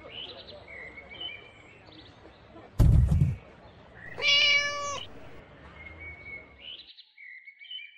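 A thump about three seconds in, then a single cat meow lasting under a second, over faint bird chirps.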